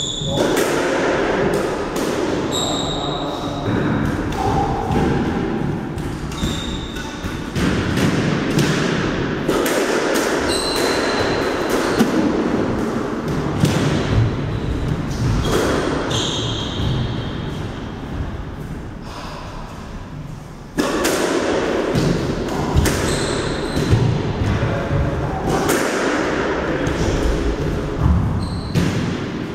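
Squash rally: the ball struck by rackets and smacking off the walls and floor in an irregular series of sharp knocks, echoing in the enclosed court. Short high squeaks of sneakers on the wooden floor come between the hits.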